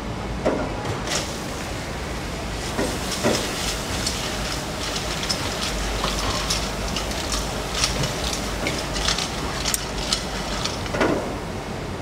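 Metal kitchen shears snipping through a grilled horseshoe crab's shell and flesh: a run of irregular sharp clicks and crunches over a steady background rumble.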